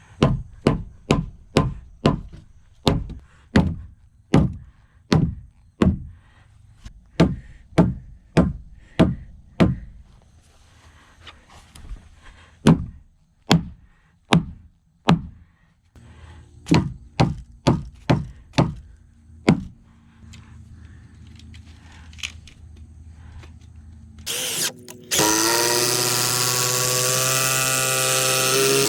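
Hammer blows on wood in runs of about two strikes a second, with short pauses between runs. Near the end a louder steady drone with a constant pitch takes over.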